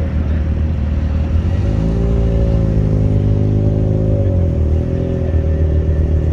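Car engines running with a deep low rumble. About two seconds in, one engine comes up to a steady raised rev, holds for a couple of seconds, then drops back toward idle.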